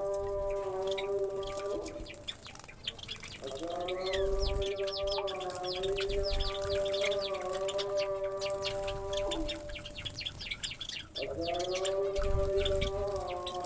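Finches and Java sparrows chirping, with many short quick calls overlapping. They sound over a louder steady held tone with overtones that breaks off twice and comes back each time.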